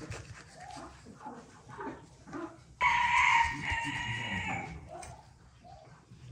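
A rooster crows once, starting a little before halfway and lasting about two seconds before trailing off; it is the loudest sound. Underneath, a knife slices through raw beef with soft rasping.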